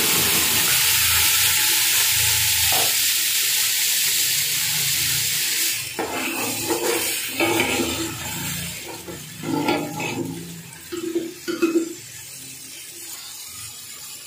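Ginger-garlic paste sizzling hard in hot ghee with fried onions in an aluminium pot. About six seconds in, the sizzle drops sharply and a metal spoon stirs and scrapes against the pot in short strokes over a quieter sizzle.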